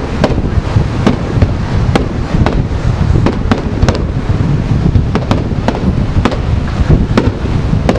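Aerial firework shells bursting in a rapid barrage: sharp bangs about two or three a second over a constant low rumble.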